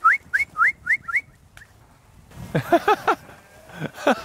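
A person whistling short rising whistles in quick succession, about four a second, to drive sheep. The whistles stop a little over a second in, and two louder wavering calls follow in the second half.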